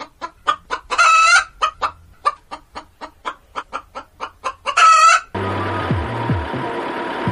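A chicken clucking in a quick even run, about five clucks a second, broken twice by a longer, louder squawk. About five seconds in the clucking cuts off and music starts.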